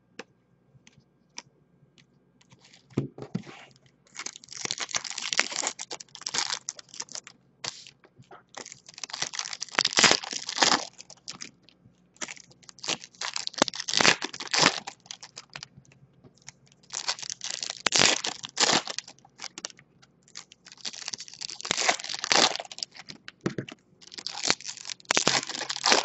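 Topps Bowman Chrome foil card pack wrappers being torn open and crinkled, one pack after another, in about six bursts of crackling. A few light clicks come in the first few seconds, before the tearing starts.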